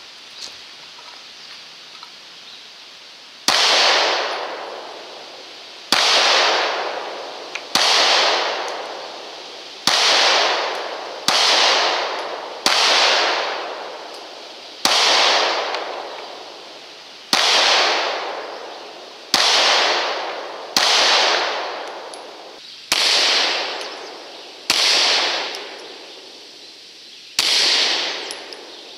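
Glock 26 9mm subcompact pistol fired in slow single shots, about a dozen sharp reports spaced one and a half to two and a half seconds apart, each trailing off in a long echo.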